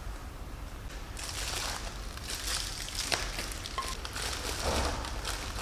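Aluminium foil and a small plastic food packet crinkling and rustling as they are unwrapped by hand, starting about a second in, with a few sharper crackles.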